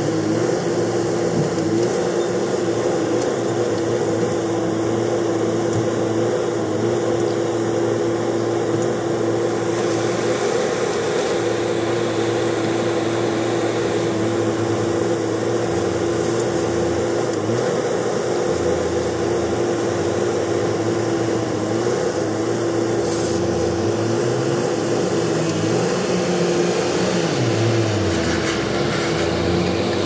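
Diesel engine of a tipper dump truck running steadily while it tips its load and then pulls away across soft ground. Its pitch dips and rises again near the end.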